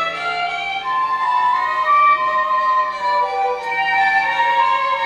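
Recorded instrumental music: the instrumental passage of a children's song between sung lines, a sustained melody moving over accompaniment, without voice.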